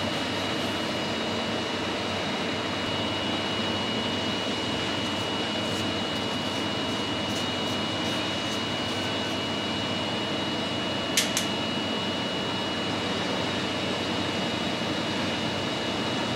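Steady mechanical hum of a CNC turning and machining centre standing ready, with a thin steady high whine over it. Two sharp clicks come in quick succession about eleven seconds in.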